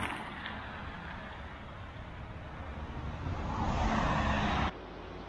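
Road traffic on the highway bridge overhead: a vehicle passing, growing louder over a couple of seconds and then cutting off suddenly near the end.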